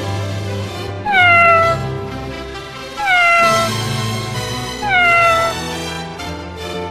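A domestic cat meowing three times, about two seconds apart, each a short call that falls in pitch, over background music.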